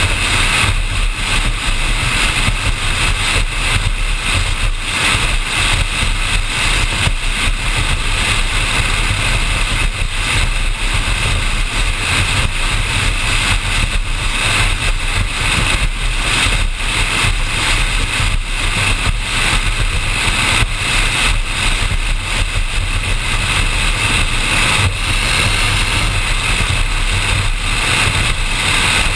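Offshore performance powerboat running steadily at speed: a constant low engine drone under a loud rush of wind and water over the bow deck.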